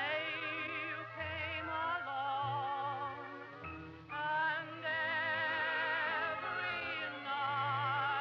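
Background music: a high operatic melody line with strong vibrato over a low, steady accompaniment.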